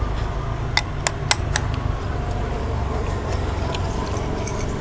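Metal spoons clinking against ceramic soup bowls: several light clinks, most in the first two seconds, over a steady low background rumble.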